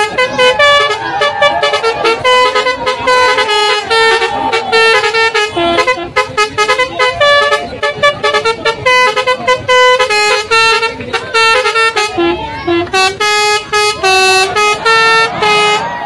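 Bus telolet horns, an Alzifa and Basuri musical air-horn set, playing a quick tune of short honking notes that hop in pitch almost without pause.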